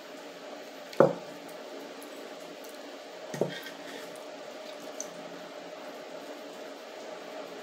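Two dull knocks about two and a half seconds apart, the first the louder, over a steady background hiss, with a faint click a little later: handling sounds as a snack is eaten by hand from a tin.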